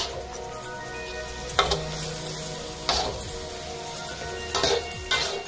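Deer meat, onions and peppers sizzling in a wok, stir-fried with a spatula that scrapes across the pan about five times.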